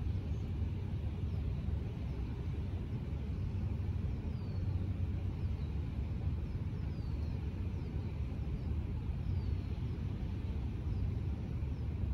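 Steady low outdoor rumble, with a few short, high chirps sliding downward, like small birds, scattered through the second half.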